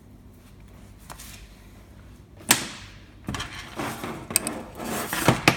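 Hands handling the bike's brake parts and cable: a sharp click about two and a half seconds in, then a stretch of rustling and scraping with several small clicks and knocks.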